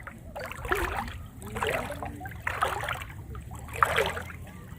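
Water splashing in a rough rhythm of about one splash a second, over a steady low rumble.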